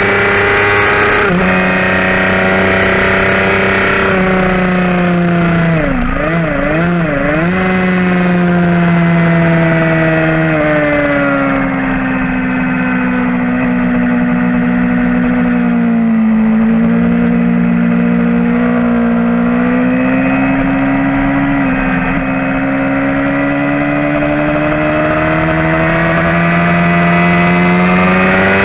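2011 Suzuki GSX-R750's inline-four with a full Yoshimura exhaust running hard on track, heard from onboard as a loud, steady high note. The pitch wavers for a moment several seconds in, sinks from about ten to sixteen seconds in, then climbs slowly back.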